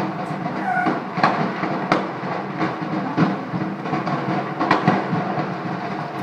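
Large petrol station fire burning: a steady rushing roar, with several sharp pops and cracks at irregular moments.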